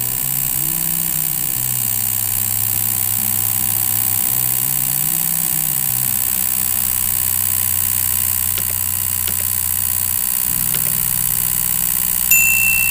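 Homemade Bedini-style pulse motor running, its magnet rotor spinning and its pulsed drive coil giving a steady electric hum. The hum's pitch rises and falls twice, holds, then steps up about ten seconds in. A short high beep sounds near the end.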